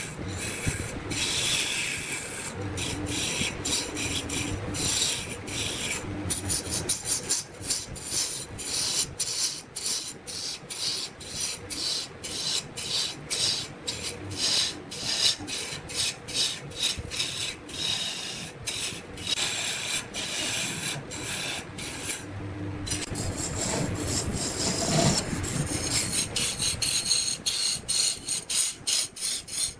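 Rasping scrape of a tool working wood on a lathe, in quick repeated strokes.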